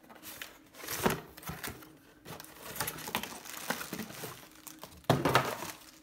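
Cardboard box being handled: scattered rustling and light knocks, with a louder rustle starting abruptly about five seconds in.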